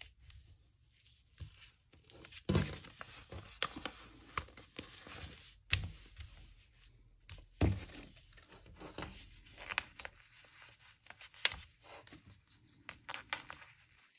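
Scissors cutting out pinned pattern pieces from folded fabric: quiet irregular snips with fabric rustling, and a few louder knocks about 2.5, 6 and 8 seconds in.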